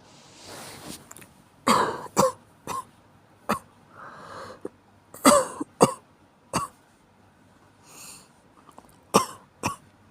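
A person with a cold coughing in three fits of about four, three and two coughs. A breath is drawn in before each fit.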